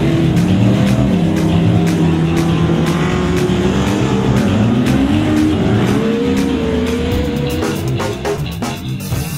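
Short-course off-road race truck engine revving up and down at speed, mixed with a music track. Near the end the engine fades and the music's drum beats carry on.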